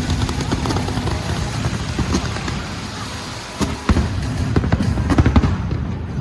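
Fireworks going off in quick succession: many sharp bangs and crackles over a dense rumble, with a cluster of louder bangs a little past halfway. Music plays underneath.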